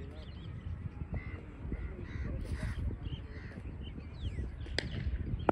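Birds calling several times in short, repeated calls, then a single sharp crack of a cricket bat striking the ball near the end.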